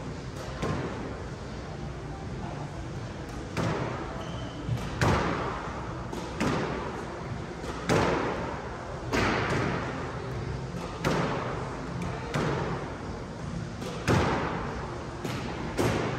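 Squash racket striking the ball and the ball smacking off the court walls, sharp cracks about every one to two seconds starting a few seconds in, each ringing on in the court's echo.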